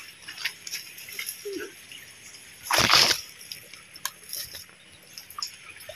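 Water splashing once in a shallow rocky creek about three seconds in, with small knocks and rustles before and after it.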